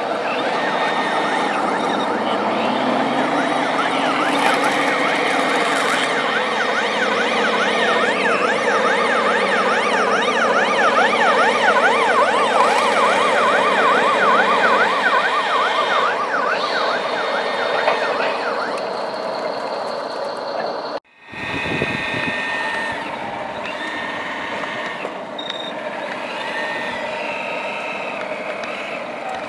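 A siren yelping in a fast rising-and-falling warble for about ten seconds, over steady machine noise from running radio-controlled trucks and an excavator. The sound cuts out for an instant about two-thirds of the way through, then the machine noise carries on.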